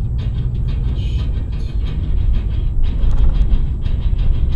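Car driving, heard from inside the cabin: a steady low road and engine rumble with irregular light rattles and clicks.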